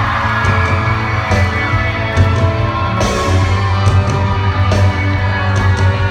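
Live band playing a pop-rock song in a concert hall, with a heavy, steady bass and repeated sharp drum and cymbal hits.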